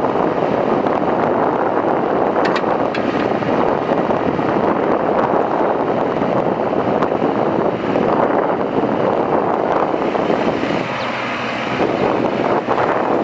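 Kubota U25 mini excavator's diesel engine running under load as the machine works its arm and swings, with wind buffeting the microphone. The sound eases briefly about eleven seconds in.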